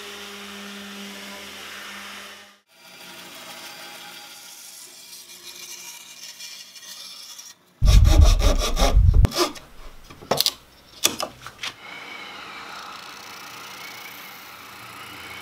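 A random orbital sander running steadily on a wooden guitar body. About halfway through, a backsaw cuts wood in a quick run of strokes, the loudest sound. Near the end an oscillating spindle sander runs steadily as a maple guitar neck is sanded against it.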